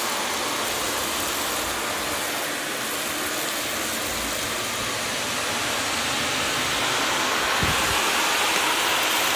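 Shark upright vacuum cleaner running with a steady rushing noise as it vacuums up small scattered debris from a hardwood floor. There is a brief low bump near the end.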